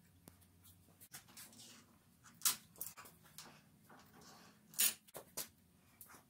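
Steel hold-down clamp hardware being handled and set on a milling machine's cast-iron T-slot table: scattered clinks and scrapes of metal on metal, the two loudest about two and a half and five seconds in.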